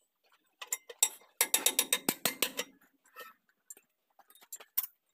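Hand ratchet wrench clicking: a couple of clicks, then a quick, even run of about eight clicks a second for just over a second, followed by a few scattered metal taps.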